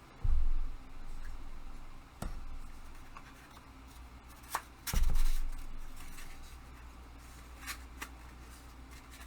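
Hands fitting the parts of a hobby tool storage rack together: light clicks and rubbing, with three dull knocks, the loudest just after the start and about five seconds in.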